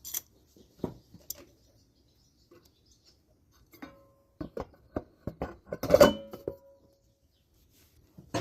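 Metal tools and engine parts clinking and knocking as they are handled, in scattered taps with a quick cluster of strikes about halfway through, one of which leaves a short metallic ring.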